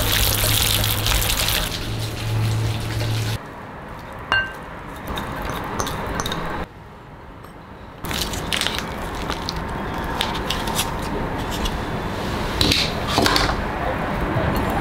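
Wet squelching and crackling of raw minced pork and shrimp dumpling filling being squeezed and mixed by hand in a glass bowl. The sound breaks off abruptly a few times, with a quieter stretch in the middle and small clicks near the end.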